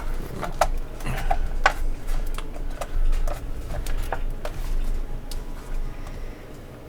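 Hard plastic pieces of a NECA Pillar of Souls display set clicking and tapping against each other as they are handled and fitted together: a dozen or so separate sharp clicks at uneven intervals.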